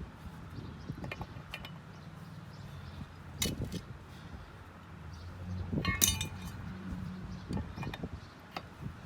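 Metal clinks and taps of a lug wrench on the wheel's lug nuts as they are snugged up in a star pattern, a few separate strikes, the loudest a ringing clink about six seconds in.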